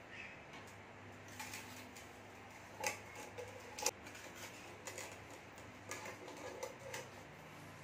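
Light clicks and knocks of hands handling a raw chicken and vegetables in an aluminium cooking pot, with two sharper knocks about three and four seconds in.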